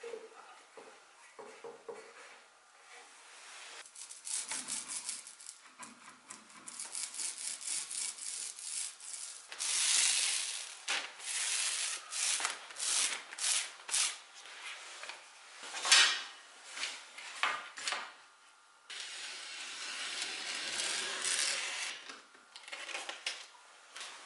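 Hand work on wood: faint ticks at first, then a long series of rubbing and scraping strokes, some in quick rhythmic runs, among them a small roller spreading glue over a sheet of wood veneer. A steadier stretch of rubbing follows near the end.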